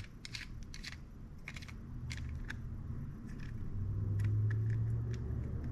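Light clicks and ticks of a Shimano Cardiff 401A baitcasting reel's parts as its side plate is pressed down over the shaft and worked into line. Under them runs a low rumble that swells for a second or two past the middle.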